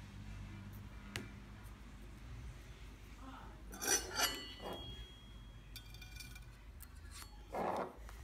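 A few light metallic clicks and clinks from a brushed-chrome Zippo 1935 Replica lighter case being turned over in the fingers. There is a sharp click about a second in, a louder pair of clinks about four seconds in with a brief ring after them, and a short rustle near the end.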